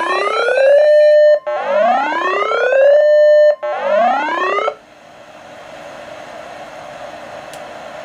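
Weather-alert siren from a Uniden BC796D scanner receiving a NOAA Weather Radio warning: electronic whoops that each rise in pitch and briefly hold, repeating about every two seconds. The last whoop is cut off about five seconds in, leaving steady radio hiss from the weather channel.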